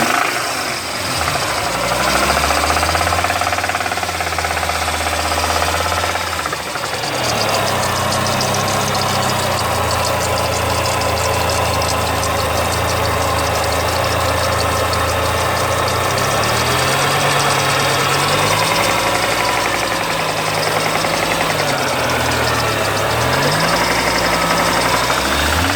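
Lancia Kappa 2.0 20-valve five-cylinder petrol engine running with a slight knock, its revs rising and falling several times with a steady stretch in the middle. The cause of the knock is unknown to the owner.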